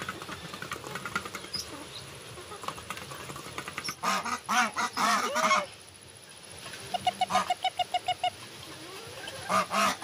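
Domestic geese honking in loud bursts about four seconds in and again near the end, with a quick run of about a dozen short, evenly spaced calls around seven seconds in. Before the first honks comes a scatter of small clicks from bills working in a metal feeding pan, over a faint steady high insect drone.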